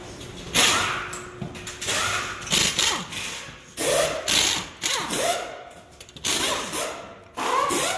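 Impact wrenches hammering lug nuts off car wheels, in short rattling bursts one after another, each winding up and down in pitch. Several tools overlap.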